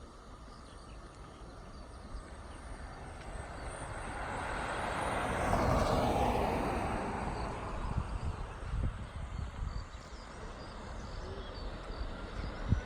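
An airliner passing close by. Its engine noise grows to a peak about six seconds in, then fades, dropping in pitch as it goes past.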